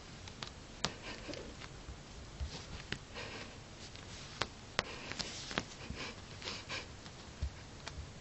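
Bengal cat rolling and rubbing on a carpet sprinkled with catnip: soft scuffing and rustling in short bursts, with scattered light clicks.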